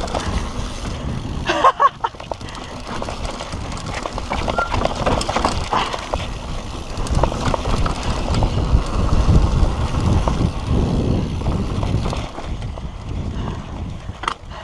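Mountain bike riding down a dirt and rock trail: tyres rolling over dirt and stones and the bike rattling over bumps, with a low rumble that grows louder past the middle.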